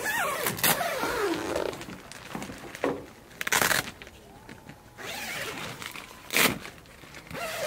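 Snow Peak Amenity Dome tent being pitched: the nylon tent fabric rustles and swishes, with four short, sharp zips or fabric snaps.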